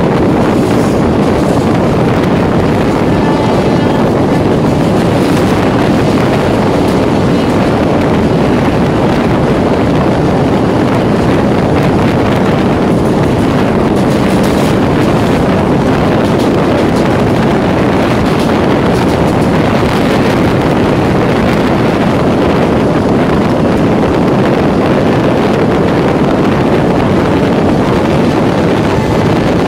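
An Indian Railways EMU local train running at speed, heard on board: a loud, steady rumble of wheels on the rails, with wind on the microphone.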